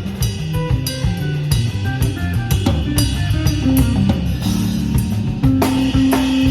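Live jazz band playing: a drum kit with snare and rimshot strokes and cymbals over a moving bass line. A long held note enters about five and a half seconds in.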